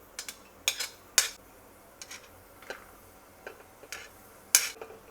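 Metal kitchen utensils knocking and clinking against cookware as vegetables are tipped into the pot: about nine irregular sharp knocks, the loudest a little after four and a half seconds in.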